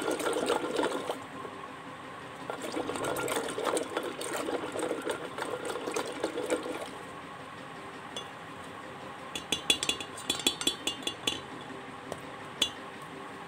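Electric hand blender running in a steel pot of yogurt and red chili powder, churning and splashing the liquid for about seven seconds. A quick run of ringing metal clinks against the steel pot follows, with one more clink near the end.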